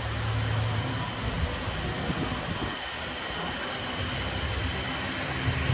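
Steady background hiss with a low hum underneath and no distinct events.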